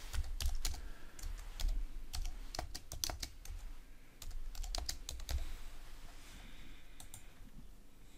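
Typing on a computer keyboard: a run of irregular keystroke clicks, thinning out near the end.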